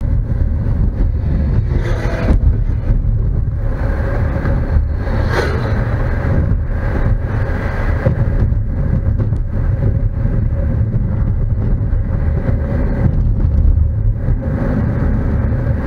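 Car driving along a winding road, heard from inside the cabin: a steady low rumble of engine and tyres with a faint steady hum.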